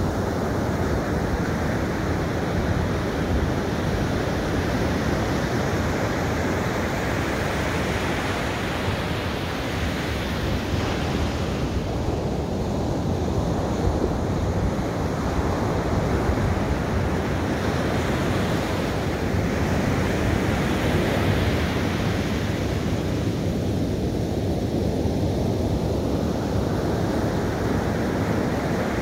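Ocean surf breaking and washing up a sandy beach, a steady rush that swells and fades about every ten seconds as each set of waves comes in and draws back.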